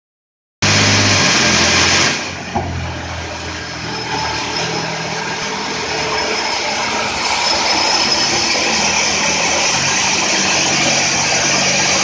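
Band sawmill running, a steady engine drone under the hiss of the blade sawing a live-edge slab of suar wood. It starts suddenly, is loudest for the first second and a half, dips, then slowly builds again.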